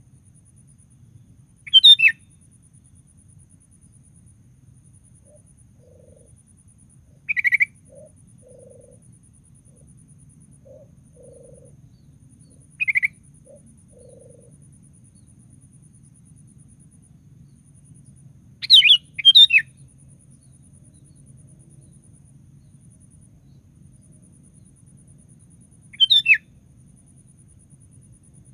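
Sooty-headed bulbul (kutilang) giving short, bubbly calls a few seconds apart, with two calls close together about two-thirds of the way through, over a faint low hum.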